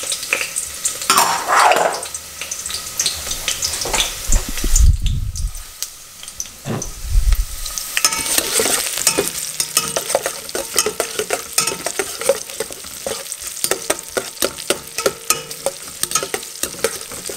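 Sliced garlic and red chili frying gently in olive oil in an enamel mussel pan: a steady sizzle with many clicks and scrapes from a metal utensil stirring against the pan. A couple of low thumps come around the middle.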